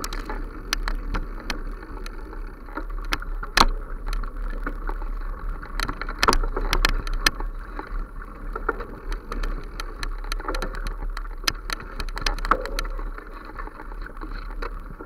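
Continuous rustling of leaves and stems as the camera is carried quickly through dense, overgrown undergrowth. Frequent sharp clicks and knocks run through it, the loudest about a third of the way in, over a steady low rumble.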